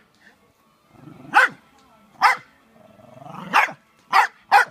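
Small Jack Russell-type terrier barking: five short, sharp barks in irregular succession.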